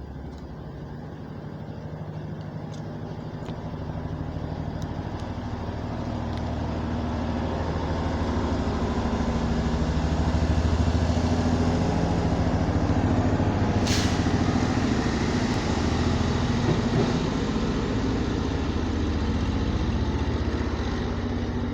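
Heavy diesel vehicle engine running, growing louder over the first several seconds as it comes closer, then holding steady. There is one brief sharp hiss about two-thirds of the way through.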